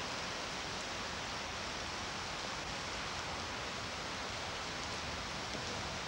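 Steady hiss of rain falling on wet stone paving.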